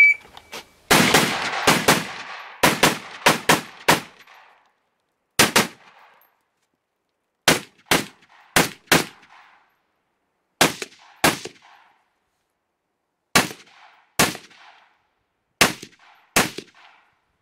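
Semi-automatic fire from an IPSC competition rifle, opened by the end of a shot timer's high start beep. A fast string of about nine shots comes in the first four seconds, followed by pairs of shots every two to three seconds, as the shooter moves through successive shooting ports.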